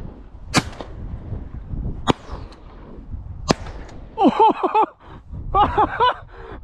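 Three shotgun shots about a second and a half apart, each a sharp crack. Near the end come two short runs of quick, falling, pitched calls.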